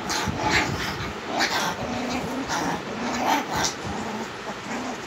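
Young German Shepherd puppies play-fighting, giving a string of short growls, whines and high yips.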